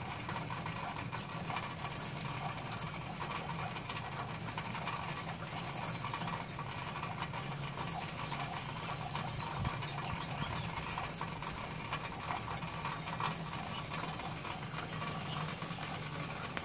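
Small birds giving short high-pitched chirps in scattered groups over a steady low hum, with faint scattered ticks.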